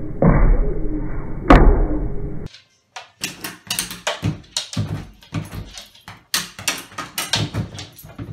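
A flap in a front door rattling and clacking as a dog noses and tugs at it: short, sharp knocks at uneven spacing, about two a second. Before that comes a dull, muffled stretch with two loud knocks.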